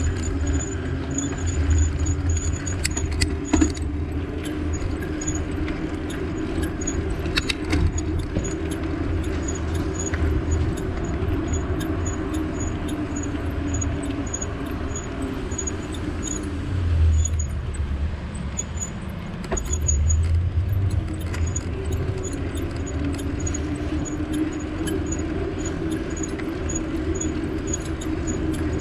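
Riding noise from a bike on the road: a steady low rumble and drone with light, regular ticking. The rumble swells briefly twice, about two-thirds of the way in.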